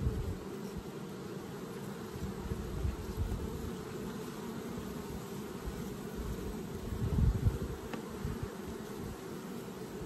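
Honeybees buzzing in a steady, dense hum around a hive being worked, a colony stirred up by the frame pulling. A few low thumps sound about seven seconds in.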